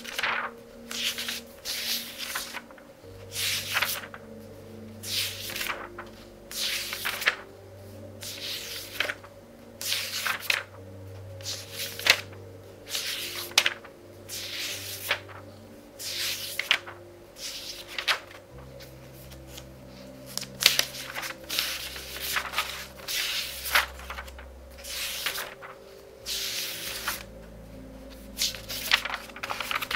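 Pages of a thick book being turned quickly, one rustling swish of paper about every second. Soft music with sustained low notes plays underneath.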